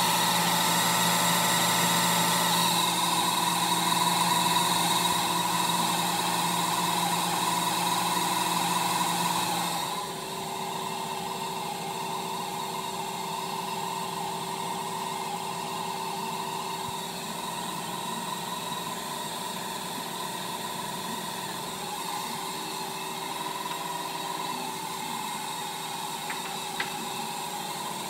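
Old Wang computer running: a steady machine hum and whir with several held tones. The sound drops noticeably about ten seconds in, and a short click comes near the end.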